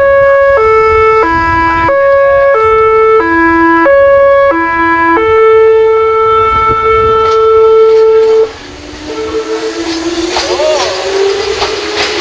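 Meitetsu 7700 series train's music horn playing its repeating three-note tune, each note about two-thirds of a second long. It ends on a long held note that cuts off about eight and a half seconds in. A slowly rising whine follows as the train pulls away.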